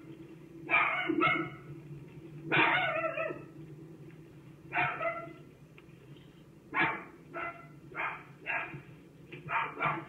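Dog barking repeatedly: about a dozen sharp barks, spaced a second or two apart at first and coming faster in the last few seconds.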